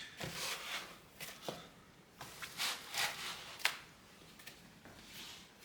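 Packaging being handled: a run of short, faint rustles and scrapes, with a sharp click about three and a half seconds in.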